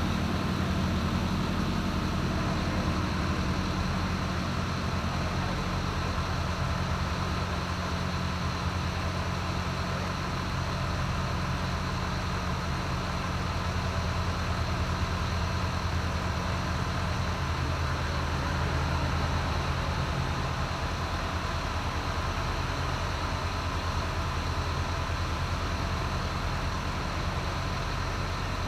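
Bus engine idling steadily, its low hum shifting slightly in pitch a couple of times, over a constant background wash of station noise.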